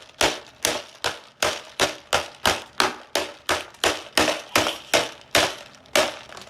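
Toy hammer repeatedly striking the hard casing of a Secret Crush Minis toy to smash it open: a steady run of sharp knocks, about two to three blows a second.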